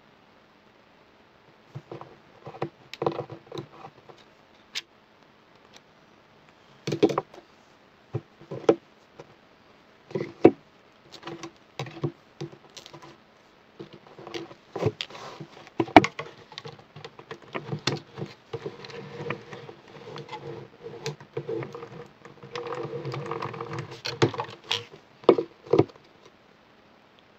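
Stiff clear plastic packaging and paper being handled: scattered clicks, taps and crinkling rustles, with a longer spell of steady crinkling near the end.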